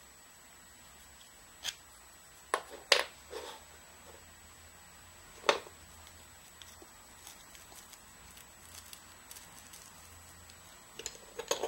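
Hard plastic 3D-printed PLA parts clicking and knocking as they are handled and fitted together. The clicks come singly and in small groups, several a few seconds in, a lone one about midway, and a quick cluster near the end, with faint ticks in between.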